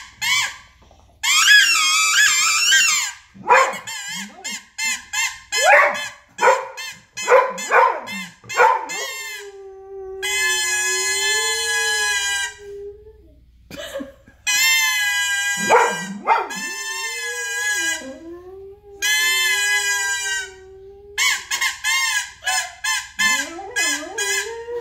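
Toy plastic trumpet blown in short toots and several long honking blasts, with a dog howling along in a lower, wavering tone.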